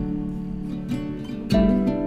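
Background music: gently strummed and plucked acoustic guitar, with a new chord struck about one and a half seconds in.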